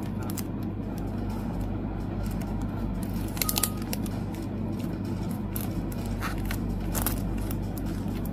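Plastic photocard sleeves crinkling and rustling as cards are handled and slid in and out, with sharper crackles about three and a half seconds in and again near seven seconds. A steady low hum runs underneath.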